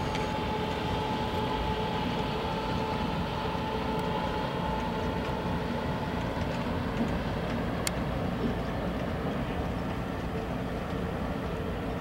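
Boat outboard motor running, a steady drone and rumble with a thin whine that fades out about halfway through.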